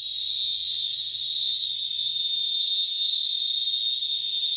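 Chorus of small cicadas (cigarrito) singing together: one steady, thin, high-pitched shrill drone that does not let up, piercing enough to hurt the ears.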